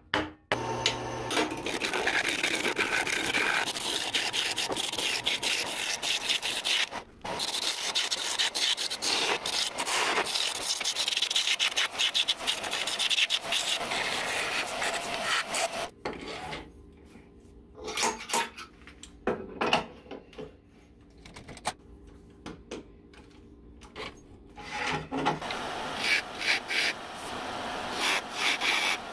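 A turning tool cutting a spinning wood blank on a wood lathe, a continuous rasping scrape of shavings coming off. The cut breaks briefly about seven seconds in. From about sixteen to twenty-five seconds in it comes in short bursts, with the lathe motor's hum showing between them, and steady cutting resumes near the end.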